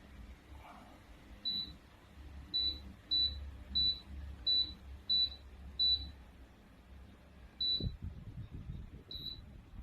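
Electric wall fan beeping in reply to remote-control button presses: about nine short high beeps at one pitch, most of them in a quick run, over a faint low motor hum.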